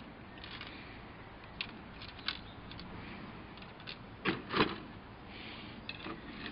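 Plastic model-kit sprues clicking and rattling as they are handled and laid back in their cardboard box, with two louder knocks close together about two thirds of the way through.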